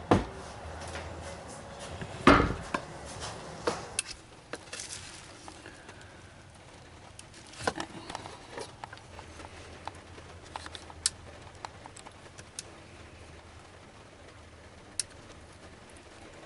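Hand tools and hardware being handled and set down: sharp knocks, the loudest just at the start and about two seconds in, then lighter clicks and taps scattered through, over a faint steady hum.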